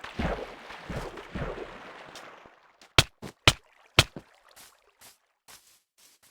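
Rustling, scraping noise in uneven strokes, giving way about three seconds in to a run of sharp knocks and lighter taps.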